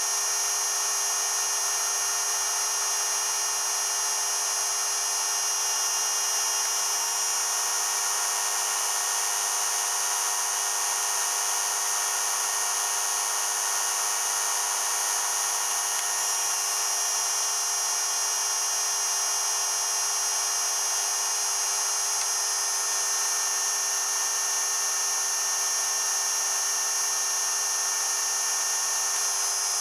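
Steady high-pitched whine of the Regenerative Acceleration Generator's motor-driven spinning rotor, made of several steady tones. The pitch steps up slightly about seven seconds in and drops back about sixteen seconds in, as the rotor speeds up with both regen coils loaded and slows when they are unloaded.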